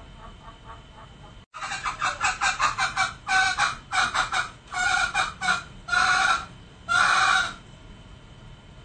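Male green junglefowl calling: a fast run of short clucks starting about a second and a half in, then a few longer, louder calls, the last ending near the end.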